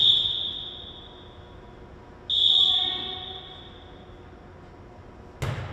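Referee's whistle blown twice, each a single steady high blast that rings out in the gym, the second about two seconds in. A sharp thud comes near the end, typical of a volleyball being struck.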